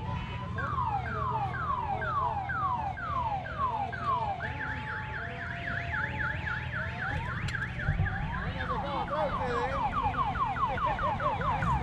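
Electronic multi-tone siren cycling through its patterns: falling wails about two or three a second, then a fast up-and-down warble from about four seconds in, then quicker falling yelps near the end. A vehicle engine runs steadily underneath.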